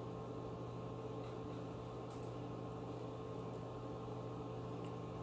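Steady low electrical hum with a few fixed tones over faint hiss: room tone, with a couple of faint ticks.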